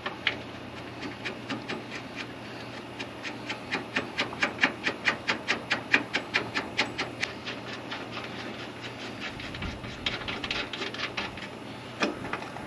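A steady run of sharp clicks, about three or four a second, from hand work on a hay baler. A shorter run of clicks comes near the end.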